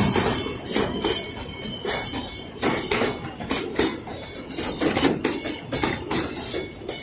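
Wheels of narrow-gauge wooden passenger carriages clacking over rail joints as the train rolls past, a quick irregular run of sharp metallic knocks over a low rumble.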